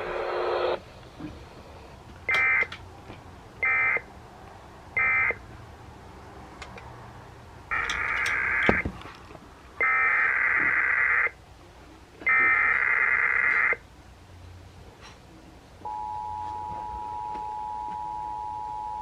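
Emergency Alert System SAME data tones over the radio: three short buzzy bursts (the end-of-message code), then three longer bursts (the header of a new alert). Near the end the steady two-tone attention signal starts and holds.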